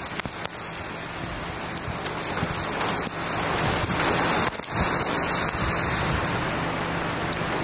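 Steady rain falling, with a few sharp drop hits close to the microphone.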